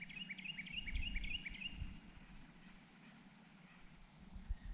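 Insects giving a steady high-pitched chorus. In the first second and a half a bird gives a quick run of short, repeated chirps over it.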